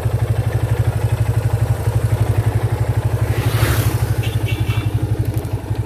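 Yamaha FZ 250's single-cylinder engine idling with a steady, even exhaust pulse. A brief rushing hiss comes in just past the middle.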